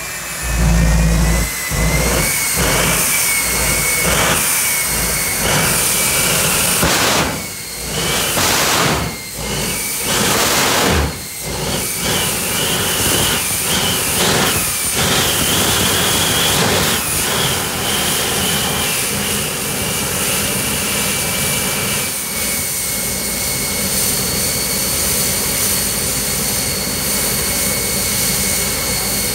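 Jet truck's turbine engine running with a loud, steady high-pitched whine whose pitch drifts up and down, over a deep rumble that is strongest in the first couple of seconds.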